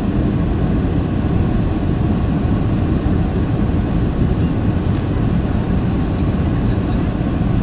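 Boeing 757-300 engines at take-off power during the take-off roll, heard inside the passenger cabin as a loud, steady, low roar.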